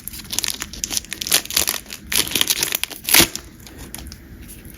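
Trading-card booster pack wrapper crinkling as it is torn open, with the loudest burst about three seconds in, then quieter, sparser rustling and clicks.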